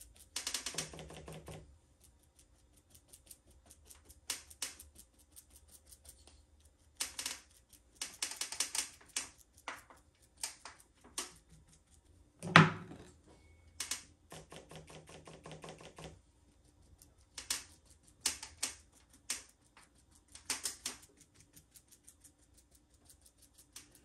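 Paintbrush dabbing and scrubbing paint onto a tabletop in short bursts of rapid tapping, leaving a speckled texture. One louder knock comes about halfway through.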